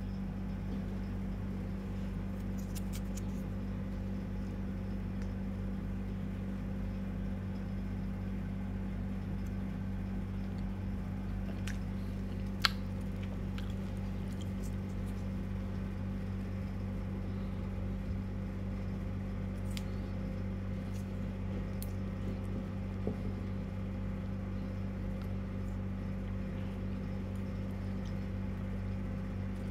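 Steady low mechanical hum, with a few faint clicks and one sharper click about halfway through as a plastic spoon scoops sticky rice in a bamboo tube.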